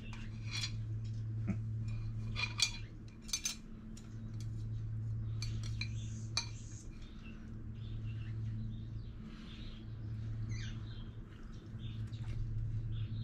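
Chopsticks clicking and scraping against a ceramic bowl while eating, a few sharp clinks in the first seven seconds, over a steady low hum.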